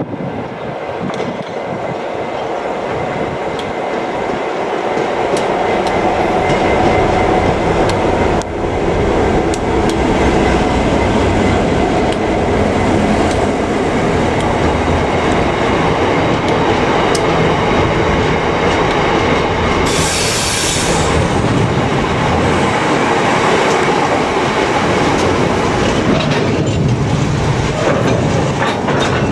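Class 59 diesel freight locomotive's EMD two-stroke engine growing louder as it comes up and passes, followed by a rake of box wagons rolling by with wheels clicking over rail joints and some squeal. A brief hiss about twenty seconds in.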